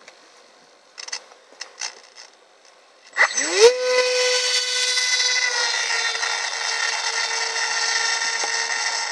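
Electric motor and propeller of an RC foam plane spinning up about three seconds in, the whine rising quickly in pitch and then holding steady at full throttle for takeoff. A few faint clicks come before it.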